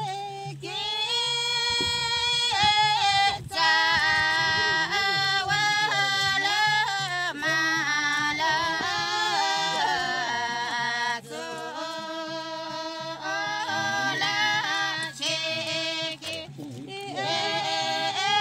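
Women singing a Nepali folk song together, long held notes bending up and down, with short breaks between phrases.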